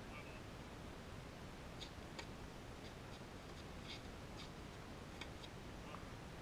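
Faint, steady outdoor background noise with a scattering of short, high-pitched ticks at irregular intervals.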